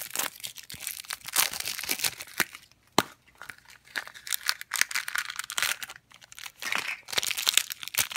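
Crinkly plastic packaging being torn and crumpled by hand: the wrapping is peeled off a plastic pumpkin toy container, then a crinkly blind bag is ripped open. Irregular crackling throughout, with one sharp snap about three seconds in.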